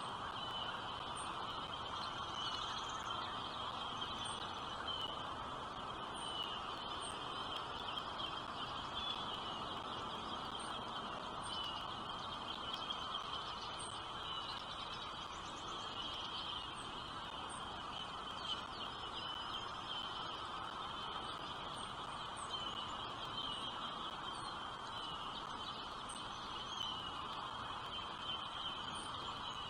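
Small birds chirping: many short, high, falling chirps scattered over a steady, shrill outdoor chorus.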